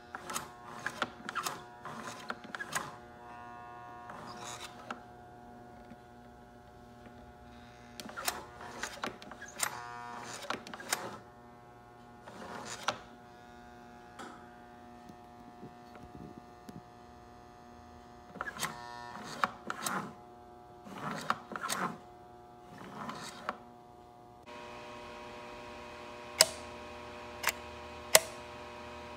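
American Flyer S-gauge train layout running: a steady electrical hum, broken by bursts of clattering clicks. Near the end come a few sharp clicks about a second apart.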